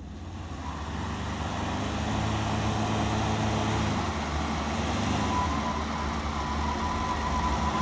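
A Force Gurkha and a Mahindra Thar revving hard against each other in a tug of war. The engines build up over the first two seconds and then hold steady under load, while the tyres spin in place in loose dirt and neither vehicle moves.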